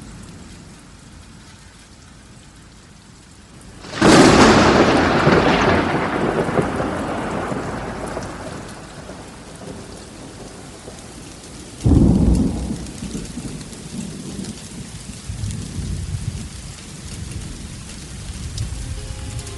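Rain falling steadily with two claps of thunder. The first, about four seconds in, is a loud crack that rumbles away over several seconds; the second, about twelve seconds in, is shorter.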